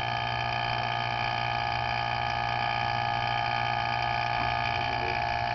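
Vacuum pump running steadily with an even, unchanging hum, drawing vacuum on a transmission valve body's governor port for a leak test.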